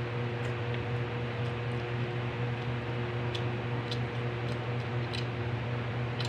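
A steady low mechanical hum with an even hiss, like a running fan, with scattered faint clicks and smacks of someone eating with their hand and chewing.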